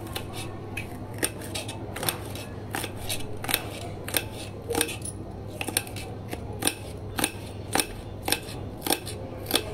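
Kitchen knife chopping small red onions into strips on a plastic chopping board. The blade taps sharply on the board about two to three times a second at an uneven rhythm.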